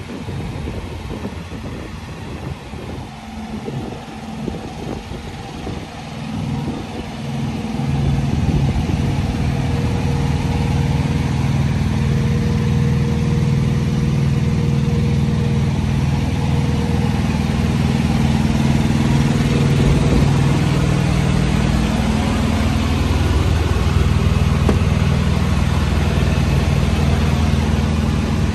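Wind buffeting the microphone, then about seven seconds in a steady, low engine hum comes up and holds: a heavy diesel truck engine idling.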